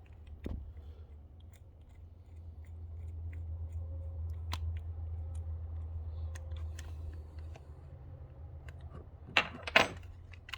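Small clicks and taps of hands handling a 1/24-scale RC crawler's wheel and a small beadlock-wheel tool, over a low steady hum, with two louder knocks near the end.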